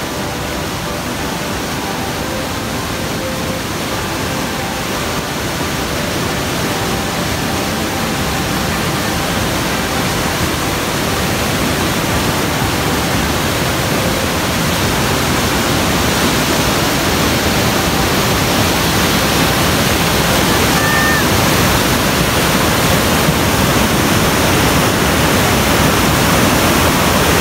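Fast mountain river rushing through whitewater rapids over boulders, a steady noise of water that slowly grows louder toward the end. Faint music fades away under it during the first several seconds.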